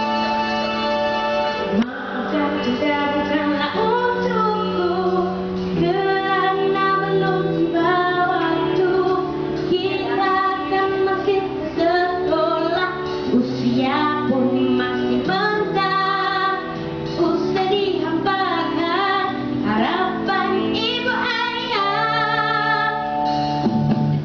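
A young boy singing a melody into a handheld microphone, with instrumental music accompanying him.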